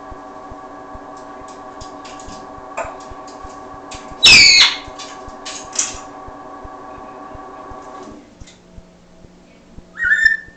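African grey parrot giving one loud, harsh call about four seconds in, with scattered short clicks and a brief whistled note near the end. All of this is over a steady hum that stops about eight seconds in.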